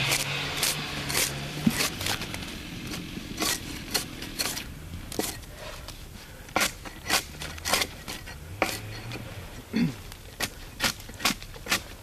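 A bark spud scraping and striking along a felled log, peeling off the bark: a series of short, sharp scraping strokes, irregular at first and coming about two a second near the end. A small engine hums and fades out in the first two seconds.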